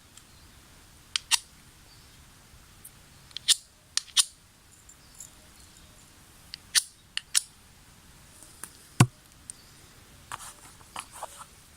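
Mora Companion knife scraped against a magnesium fire-starter bar's striker rod: about a dozen short, sharp rasping strikes at irregular intervals. The knife throws only a poor spark.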